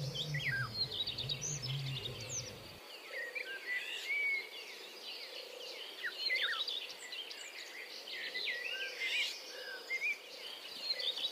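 Many small birds chirping over a steady high insect drone, a nature soundscape. A low hum underneath stops about three seconds in.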